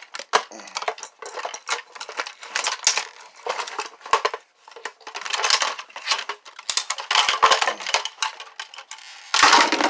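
Clinking and clattering of small vacuum cleaner parts being handled and pulled apart during disassembly: a run of sharp clicks and rattles, with a louder burst of clatter near the end.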